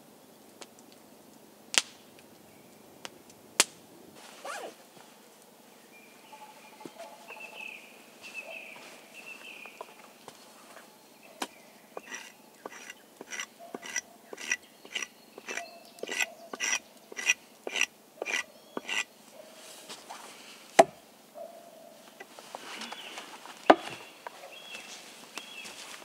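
Small hatchet chopping wood on a stump chopping block: a run of light, regular strikes about two a second, then two harder single blows a few seconds apart. Faint bird calls and a few sharp cracks come before the chopping.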